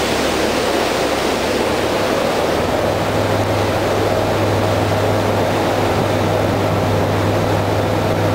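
Steady rush of wake water and wind on board a high-speed ferry, with the drone of its Caterpillar 3412E diesel engines. A low, steady engine hum comes up about two and a half seconds in.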